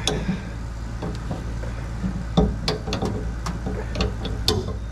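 Scattered small metallic clicks and taps of washers and nuts being handled on a fuel pump's mounting bolts under a car, about half a dozen over a few seconds. A steady low hum runs beneath.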